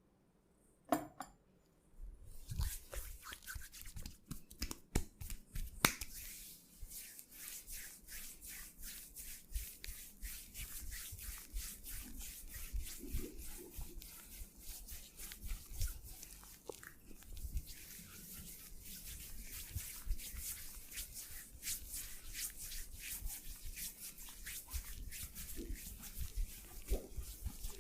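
Hands working over skin in a massage, rubbing and patting in a quick, steady run of short strokes that starts about two seconds in. A sharper click stands out about six seconds in.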